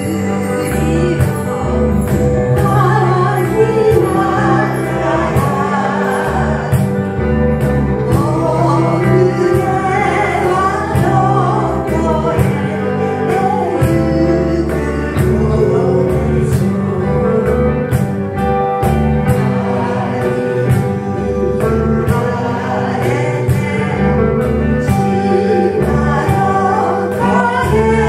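A live band of electric guitars, bass, keyboard and cajon playing a gentle song in steady tempo, with singing over it and regular percussion strokes.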